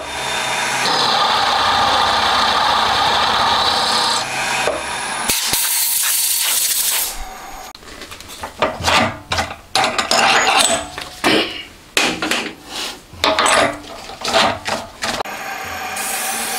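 Milling machine cutting a camshaft gear blank: an end mill grinding out counterbores, with a steady machining noise and a hiss of mist coolant. About seven seconds in, this gives way to a run of short, irregular bursts of cutting as a drill works through a ring of small holes.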